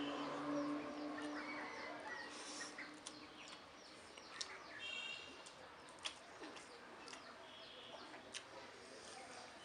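Close-miked eating: scattered wet mouth clicks and smacks while chewing, with birds chirping in the background.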